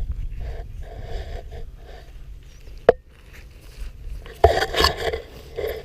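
Scraping and rustling of soil being dug and sifted by hand while searching for a metal-detector target, with one sharp click a little before halfway and a louder run of scrapes in the second half.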